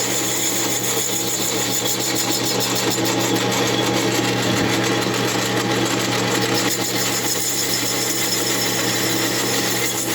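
Lathe running steadily with an even hum while the cutting tool takes a light cut off the base of a chainsaw cylinder.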